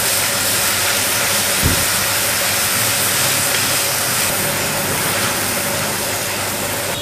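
Chopped garlic frying in hot oil in a kadai, sizzling steadily while it is stirred with a metal spatula. A single short knock about a second and a half in.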